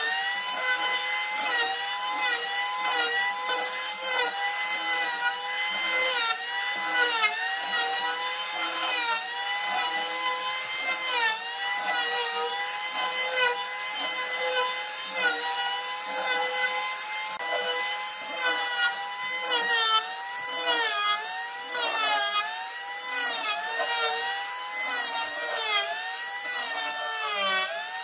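Electric hand planer shaving the surface of a rough hardwood slab: a steady motor whine that dips in pitch as the blades bite and rises again as they clear, every second or two, over the rasp of wood being cut.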